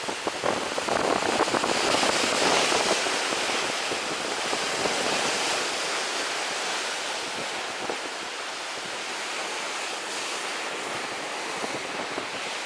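Sea surf washing and breaking over the boulders at the foot of a seawall, with wind on the microphone; the wash swells loudest about two to three seconds in, then carries on more evenly.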